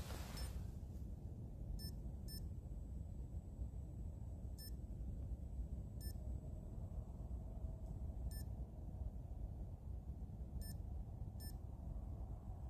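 Short, high electronic beeps, seven in all, coming at irregular intervals over a steady low rumble.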